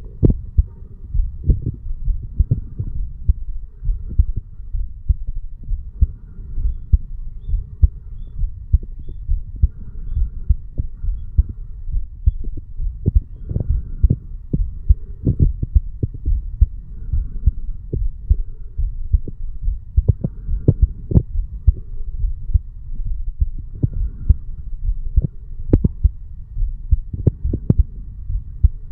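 A resting adult man's heartbeat recorded over the mitral (bicuspid) valve area: a steady run of low beats, with a few sharper knocks in the second half.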